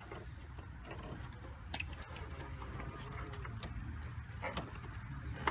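A few faint clicks and small rattles of plastic as the stock headlight bulb is worked loose from its connector, over a steady low hum.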